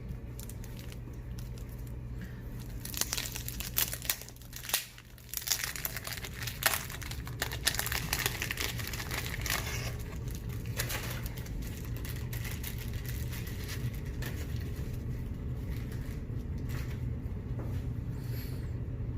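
Paper card-pack wrappers crinkling and tearing as trading card packs are ripped open, in a run of crackles about three to eleven seconds in, over a steady low hum.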